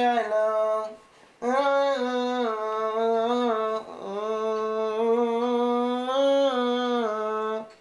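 A man's voice singing a wordless melody in long held notes, in three phrases, the pitch moving in small steps. It stops just before the end.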